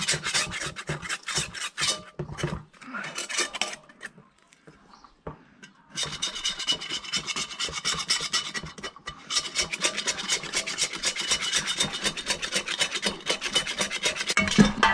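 A brush scrubbing paint stripper onto the steel shell of an M42 helmet: rapid scratchy strokes, breaking off for a couple of seconds in the middle before going on.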